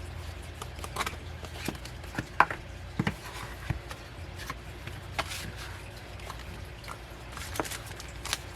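Album paper and card being handled: scattered taps, clicks and short rustles of photo book pages and packaging, over a low steady hum.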